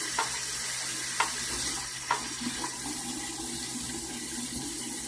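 Tap running into a sink as hands are washed under it, a steady rush of water with a few light knocks in the first couple of seconds.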